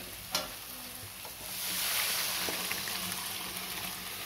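A single knock, then about a second and a half in a loud sizzle as cooked chana dal is poured into hot spiced oil and masala in a kadhai, swelling and slowly dying away.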